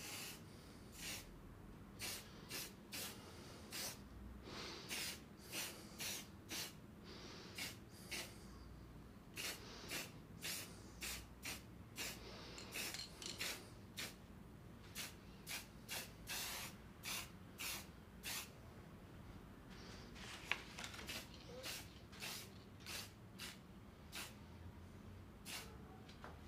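Aerosol spray-paint can spraying in many short hisses, about one to two a second, with a few longer passes, as metal pieces are coated back and forth.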